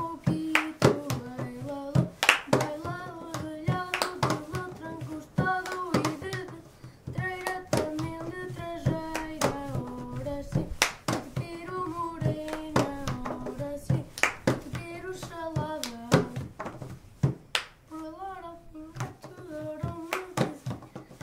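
Two boys singing a Portuguese traditional song together, keeping a steady beat with knuckle knocks and palm slaps on the top of a round white container, and with hand claps.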